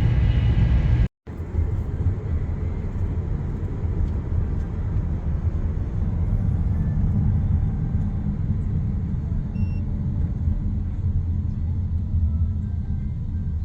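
Steady low rumble of a vehicle in motion, cutting out abruptly for a moment about a second in before carrying on.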